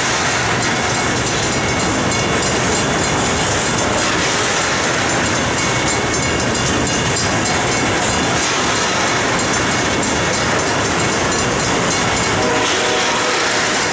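Cars of a loaded BNSF slab freight train rolling by, a steady noise of steel wheels on rail with some clatter.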